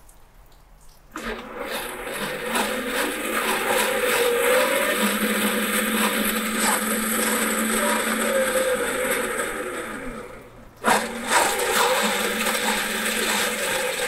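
Power Wheels ride-on's electric drive motors and gearboxes running with the wheels spinning free, fed from a 20 V tool battery through a motor controller. It starts about a second in, cuts out briefly near eleven seconds and starts again. The shifter is left in reverse, so the wheels turn backwards and slowly.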